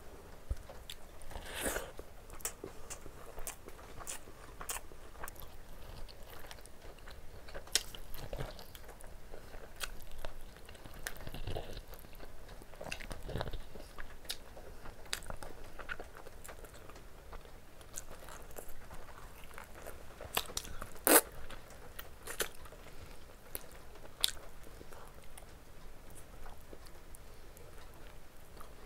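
Close-up sound of a person eating by hand: chewing and biting into rice and curried chicken and mutton, with many short, sharp mouth clicks and one louder click about two-thirds of the way through.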